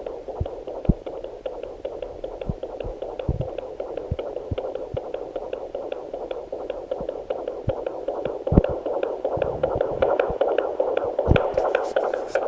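Heartbeat of an 18-week fetus through a Sonoline handheld fetal Doppler's speaker: a fast, even whooshing pulse at about 150 beats a minute, over a steady hiss, with a few low thumps as the probe shifts on the gel.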